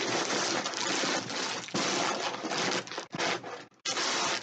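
Plastic packing material crinkling and rustling as it is pulled out of a cardboard box, in loud, continuous, irregular handling with a couple of brief pauses near the end.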